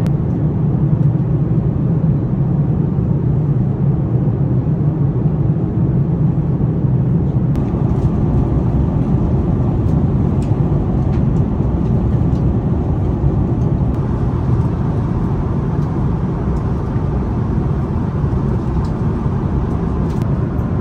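Steady cabin noise of an Airbus A330-900neo in flight: an even, low rumble of airflow and engines. A few faint clicks come in the second half.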